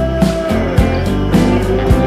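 Rock background music with guitar over a steady drum beat; a held guitar note slides down and then back up about halfway through.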